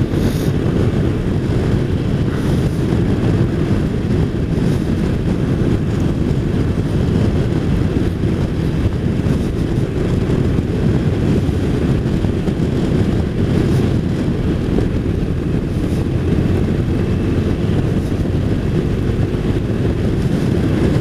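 Touring motorcycle cruising at a steady road speed: a constant low rush of engine, road and wind noise with wind buffeting the microphone, unchanging throughout.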